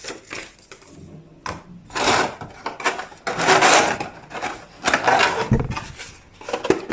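Packaging being handled while an item is unboxed: rustling in several short bursts, with small clicks and knocks between them.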